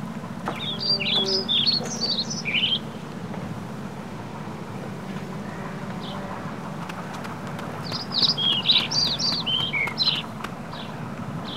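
A songbird sings two bursts of quick, high chirping notes, one about a second in and another about eight seconds in, over a steady low hum.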